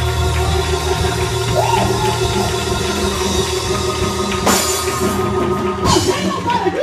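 Loud live gospel praise music from a church band: drum kit and sustained keyboard chords, with cymbal crashes about four and a half and six seconds in.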